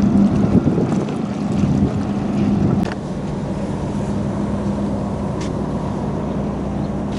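Steady low engine hum with a constant drone, dropping slightly in level about three seconds in.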